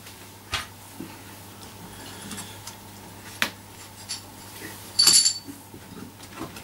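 Small round metal weight plates lifted off and set down: a few light knocks, then a ringing metallic clink about five seconds in.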